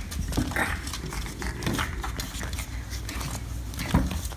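A small puppy scampering around a room, with irregular light taps and clicks from its paws, over low handling rumble from a handheld phone.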